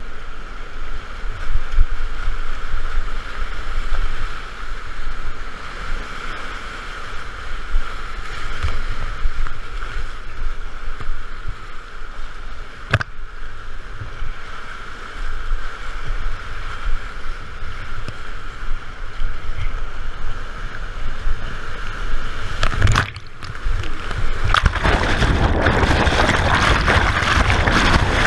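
Whitewater rapids rushing and splashing around a kayak. From about 24 s in the water noise grows louder and harsher as the kayak is window-shaded, rolled over by the rapid's hole.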